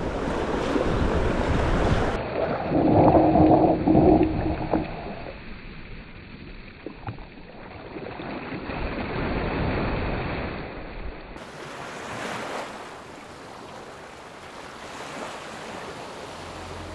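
Surf washing on a beach with wind noise on the microphone. It is loudest in the first five seconds, where a brief steady tone sounds about three seconds in, then it settles to a quieter wash.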